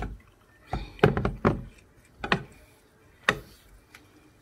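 Several knocks and thuds of a bowl against the rim of a cooking pot as ground egusi paste is tipped and shaken out into it. There is a quick cluster of knocks about a second in, then single knocks at intervals.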